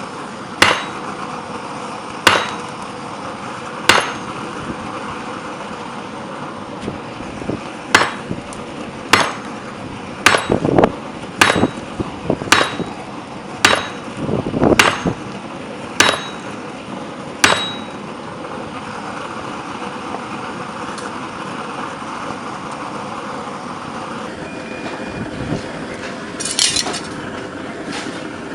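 Blacksmith's hammer striking metal on an anvil: about a dozen ringing blows, roughly one to one and a half seconds apart, then a pause of several seconds before a few more strikes near the end. A steady background noise runs underneath.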